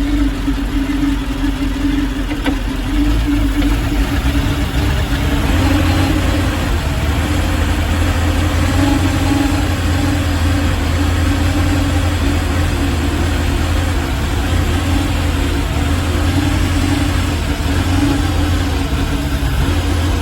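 Chevrolet Malibu engine running at a rough idle, a steady low drone that gets slightly louder about three seconds in.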